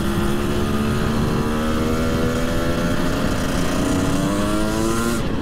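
Husqvarna two-stroke dirt bike engine pulling steadily under load, its pitch climbing slowly, then falling near the end. The engine is new and is being run in.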